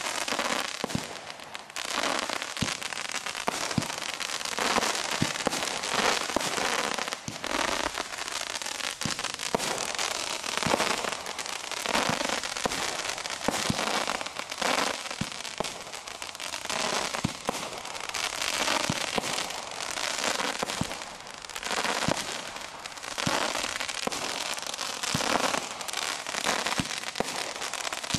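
Consumer multishot fireworks cake firing a rapid, unbroken string of shots, each launch thump followed by crackling-tail comets and crackling bursts. The crackle forms a continuous dense wash between the shots.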